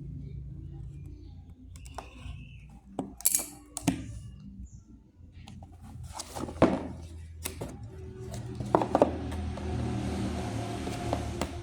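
Handling noises from unboxing: scattered clicks and knocks, with a longer rustle near the end, over a steady low hum.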